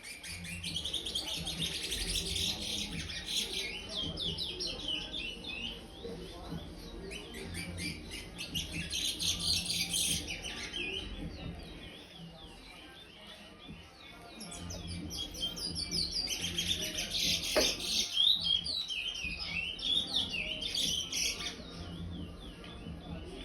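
A young curió (chestnut-bellied seed finch), five months old, singing its 'praia' song: fast runs of high chirping notes in three long phrases with short pauses between.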